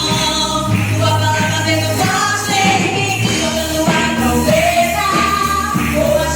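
Worship song played by a band with a singer: a melody over held bass notes and a drum beat.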